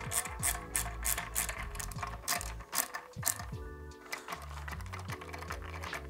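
Hand ratcheting screwdriver clicking in quick, irregular runs as it drives a hex screw into a scooter's fender bracket. Background music underneath.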